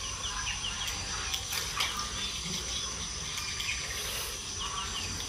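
Outdoor ambience: insects keep up a steady high drone, with short, falling chirps repeated over it and a few faint clicks.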